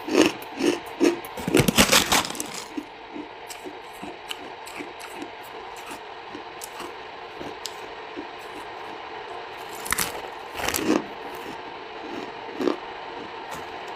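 Close-up biting and chewing of hard buckwheat chunks. There is a burst of loud crunches in the first two seconds, softer steady chewing for several seconds, then fresh bites with more crunches about ten seconds in and again near the end.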